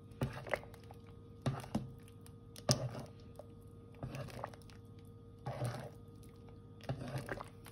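Metal spoon stirring soup in a cooking pot, clinking and scraping against the pot in short irregular knocks, often in pairs, every second or so. A faint steady hum sits underneath.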